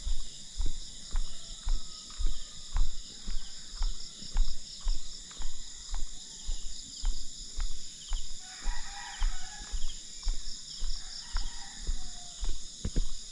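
Footsteps thud about twice a second under a steady high-pitched insect drone. About eight and a half seconds in, a chicken calls for about a second, and more faintly again a little later.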